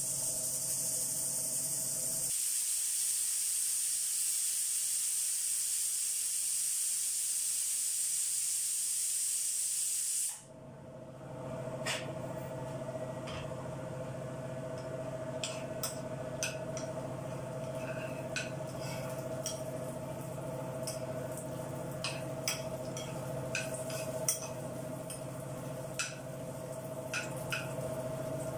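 Steady, high-pitched hiss of steam venting from an aluminium pressure cooker on a gas burner, cutting off abruptly about ten seconds in. After that, a low steady hum with scattered sharp clicks of a steel spoon against a frying pan as nuts are stirred.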